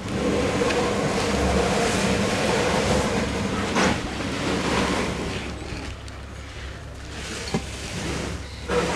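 Safari vehicle's engine running with a steady rumble and noisy hiss, with a single knock about four seconds in.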